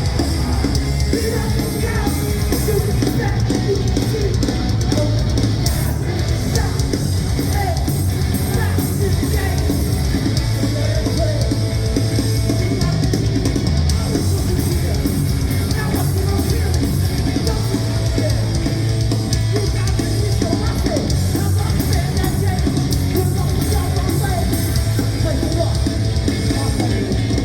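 A heavy metal band playing live at loud volume, drum kit and amplified guitars in a dense, unbroken wall of sound with vocals over it.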